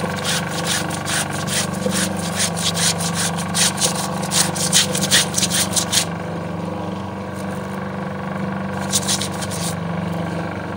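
Washing machine spin dryer (spinner) running with a steady hum, while a bar of soap is rubbed on a stained cloth garment in quick strokes, several a second. The scrubbing stops about six seconds in, with a few more strokes later, and the spinner keeps humming.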